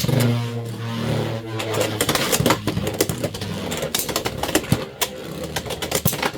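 Beyblade X spinning tops whirring in a plastic stadium. A steady hum near the start gives way to a rapid run of sharp clacks as the tops collide and scrape against each other and the stadium.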